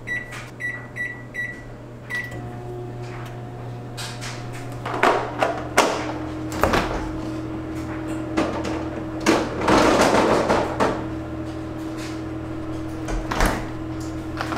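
Built-in microwave oven's keypad beeping about six times as it is set for 90 seconds, then the oven starting up and running with a steady hum, heating a mug cake. A few clicks and knocks sound over the hum.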